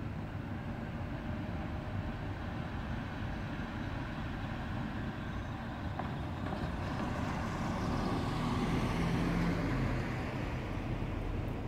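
A car driving up the street toward the microphone: its engine and tyre noise grow louder over several seconds, peak near the end, then ease off a little, over a steady low rumble of traffic.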